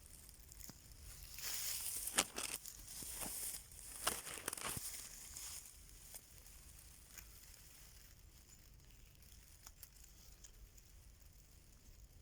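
Faint rustling and crackling with a few sharp snaps during the first half, then only quiet background hiss.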